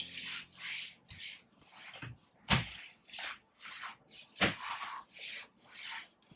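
Flat sheet mop pushed back and forth over a wood-effect floor: short swishing rubs about twice a second, with a couple of sharper knocks as the mop head hits or skids.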